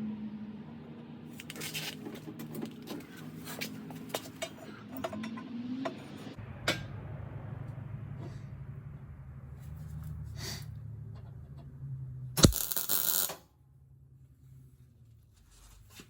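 Metal parts clinking and tapping over a fading steady tone, then a low hum from about six seconds in. One loud metallic clank comes near the end, followed by a short burst of noise that cuts off suddenly.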